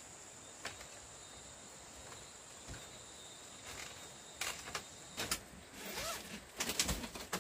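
Sharp clicks, scrapes and rustles of a suitcase being handled on a slatted bamboo floor, starting about halfway through and getting busier near the end, over a steady high insect drone. A few faint thumps of footsteps on bamboo stairs come earlier.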